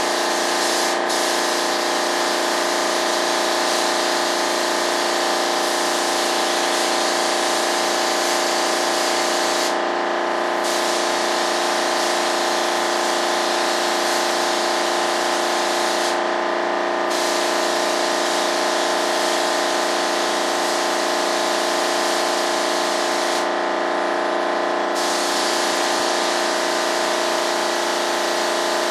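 Air compressor running with a steady hum, under the hiss of an air spray gun spraying primer. The hiss stops briefly three times, about ten, sixteen and twenty-four seconds in, while the hum carries on.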